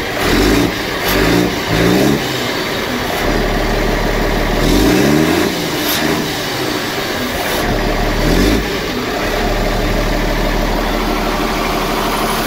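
Cummins diesel truck engine idling and blipped five times, the pitch rising with each rev; the longest rev comes about five seconds in. The owner suspects the noise comes from the turbo, probably a leaking or loose turbo pipe.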